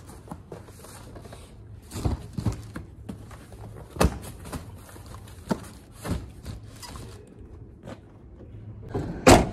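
Cardboard parcels being handled and set down in the back of a van: a handful of scattered thuds and knocks with footsteps, and a louder bang just before the end.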